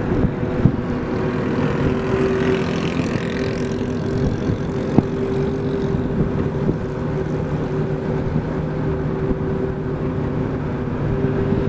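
Car engine running steadily with road noise, heard from inside the cabin while driving, with a couple of sharp knocks, one of them about five seconds in.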